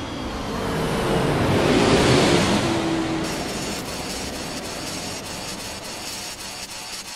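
Intro sound-effect whoosh: a long rushing sweep, like an aircraft flying past, that swells to its loudest about two seconds in and slowly dies away. A faint fizzing crackle of sparks rides on top from about three seconds in.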